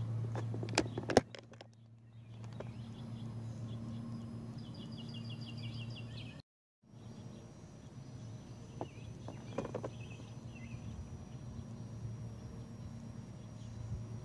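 A few clicks and a sharp knock in the first second or so as the camera is handled and set up. Then outdoor ambience with a steady low hum and birds chirping in quick runs, twice. The sound cuts out completely for a moment about six and a half seconds in.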